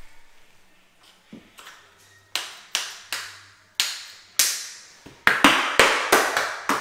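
An open hand slapping down on large porcelain floor tiles set with self-levelling clips and wedges: a run of about a dozen sharp taps, each with a short ringing tail, coming faster near the end.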